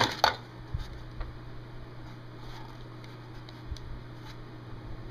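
A few faint clicks and taps as an AK-74 magazine is handled, over a steady low hum.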